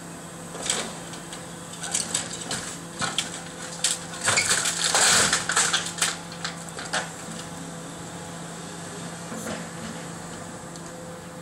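An excavator demolishing a house: scattered clacks of falling debris build to a loud crashing clatter a few seconds in, then die away after about seven seconds, over the steady drone of the excavator's engine.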